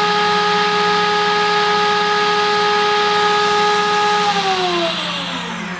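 Machining-center spindle whining steadily at its 25,000 rpm top speed over a steady hiss and low hum. About four seconds in, the whine falls in pitch as the spindle slows down.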